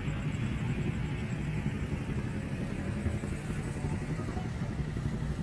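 Street traffic noise dominated by a steady low rumble from passing motorbikes and cars.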